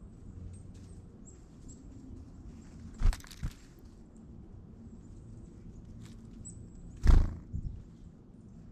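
Faint, high, short chirps of small songbirds at a feeder, broken twice by a loud dull thump, each followed by a smaller knock, about four seconds apart.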